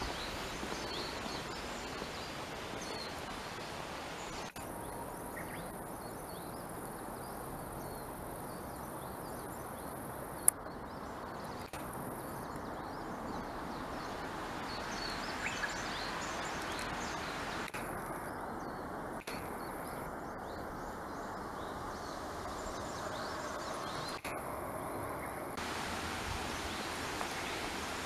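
Steady outdoor background hiss of a rural yard, with a single sharp click about ten seconds in.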